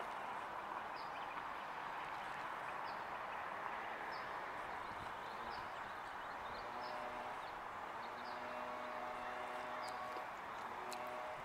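Quiet outdoor background noise, a steady distant hum near a road, with about a dozen faint, short, high chirps of small birds scattered through it. A faint steady engine-like hum comes in about seven seconds in.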